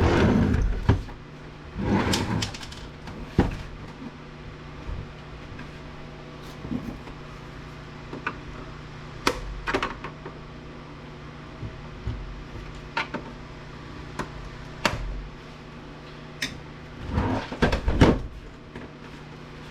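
Scattered clicks, knocks and rattles of hand tools and hard plastic and metal parts being handled while an APC UPS battery-backup unit is taken apart, with louder bursts of clattering near the start, about two seconds in and near the end, over a steady low hum.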